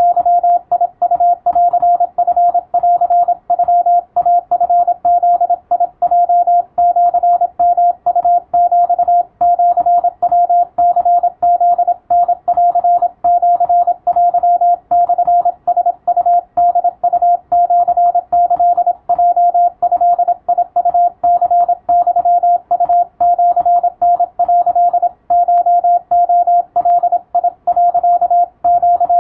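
Japanese Wabun Morse code sent as a single steady tone keyed rapidly on and off in dots and dashes, a radiotelegram-format receiving-practice transmission for the radiotelegraph operator exam.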